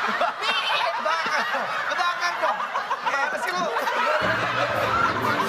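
Many people laughing together, a dense burst of overlapping laughter.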